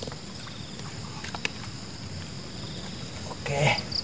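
Low rumble of wind on the microphone over steady insect chirping. A few faint clicks come from handling the set line at the water's edge, and a short grunt-like vocal sound comes near the end.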